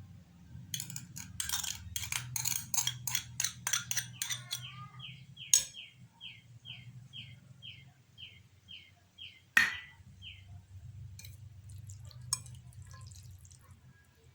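A quick run of about a dozen sharp clinks, like bowls and spoons knocking together, followed by a row of short high chirps repeated about three times a second, and one louder knock near the end of the chirps.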